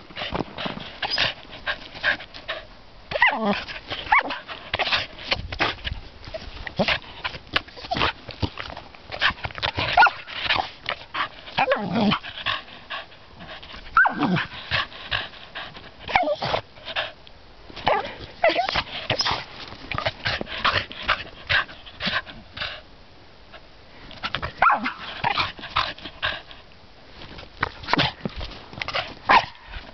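A dog plays in snow, its paws crunching and scuffing through it in quick, irregular bursts. A few short, falling whines come now and then.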